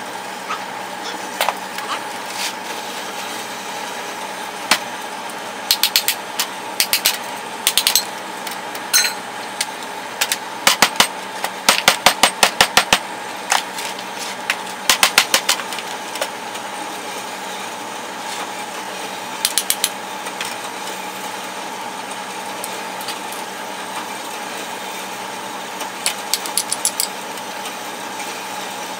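Small hammer knocking apart plaster investment to free an aluminium casting: sharp knocks in quick runs, the longest and fastest run about halfway through, over a steady background hum.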